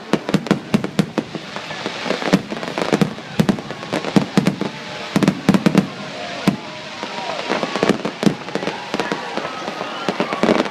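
Fireworks grand finale: a rapid, continuous barrage of aerial shell bursts and crackling bangs, several a second, with faint whistles from rising shells in the second half.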